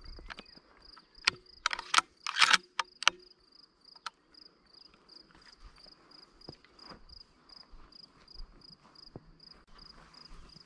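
A cricket chirping steadily, a single high note repeated about two to three times a second. About one to three seconds in, a quick cluster of sharp clicks and knocks is louder than the chirping.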